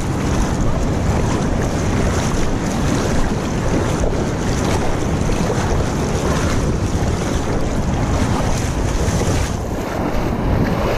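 Steady wind noise buffeting the microphone over the wash of shallow surf.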